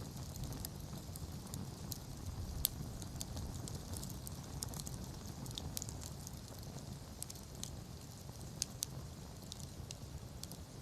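Wood campfire burning: irregular crackles and pops over a low rumble of the flames, with a sharper pop about two and a half seconds in and another near the end.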